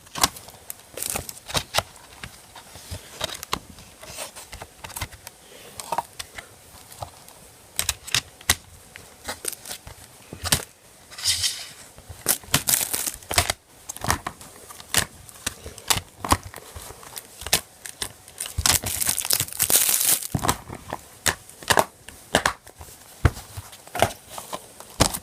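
Plastic wrapping on a DVD boxset being torn open and crumpled: irregular crinkling crackles and tearing, louder about eleven and nineteen seconds in.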